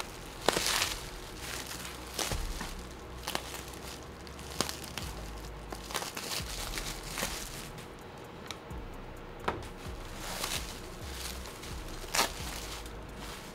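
Bubble wrap and plastic packaging being handled, crinkling and rustling, with scattered sharp crackles and clicks, the sharpest near the start and again near the end.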